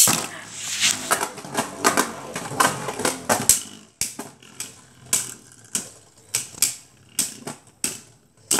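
Two Beyblade Burst spinning tops launched into a plastic stadium with a sharp snap, then clashing: rapid, irregular clacking hits of the tops against each other and the stadium wall, dense for the first few seconds, then thinning to single knocks.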